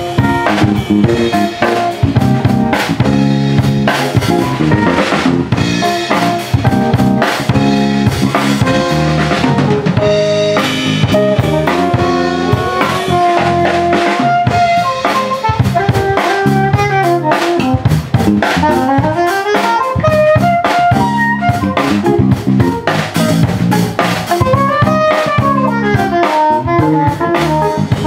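Live jazz-funk band playing: a drum kit keeps a busy beat with snare and rimshot hits over electric bass and guitar, while a soprano saxophone plays a gliding melody line that stands out more in the second half.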